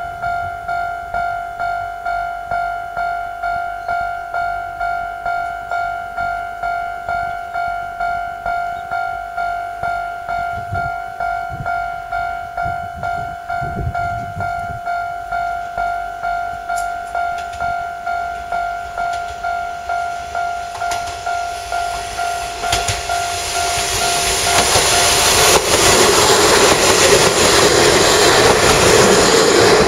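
Railway level-crossing alarm bell ringing a steady electronic ding, repeating evenly. Late on, a Kanto Railway 0 series two-car diesel railcar approaches and passes close by, its engine and wheels growing loud and covering the bell.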